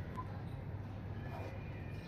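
Faint background noise with a low steady hum and no distinct event: a lull between rooster crows.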